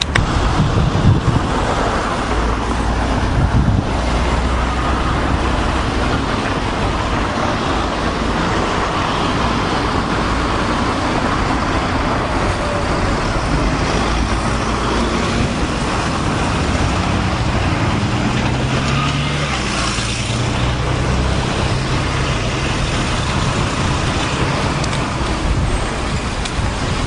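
Town street traffic: motor vehicles running by with steady engine and road noise, and a low engine hum that comes in about two-thirds of the way through.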